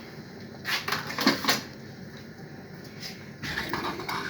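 Kitchen cookware or utensils knocking twice in quick succession, a little under a second in and again about half a second later, with a softer sound near the end.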